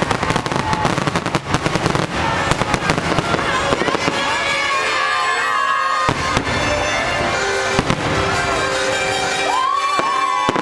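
Aerial fireworks shells bursting, with dense rapid crackling through the first few seconds and a few single loud bangs later. Music plays throughout and comes through more plainly in the second half.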